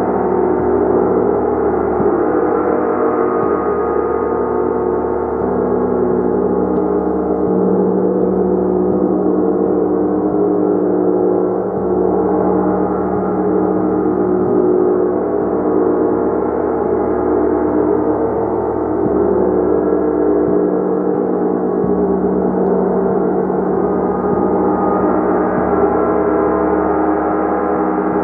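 Gong played continuously in a steady, dense wash of many overlapping ringing tones, kept up without a break.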